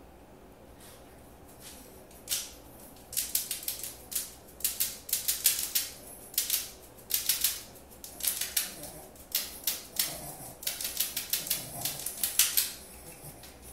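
Chihuahua grooming itself, with bursts of quick rattling clicks from its collar and claws, starting about two seconds in and coming again and again.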